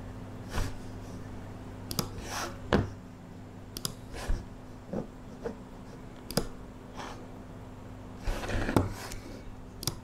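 Computer mouse clicking at a desk: scattered single clicks and quick double-clicks, with small knocks and rustles of handling on the desktop and a cluster of them near the end, over a steady low electrical hum.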